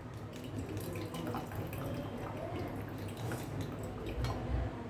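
Faint dripping of liquid with a few light clicks and a soft knock about four seconds in, over a low steady hum.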